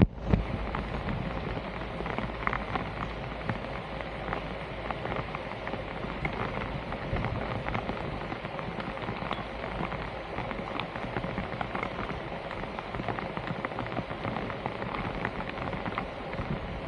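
Steady patter of water with many small scattered clicks.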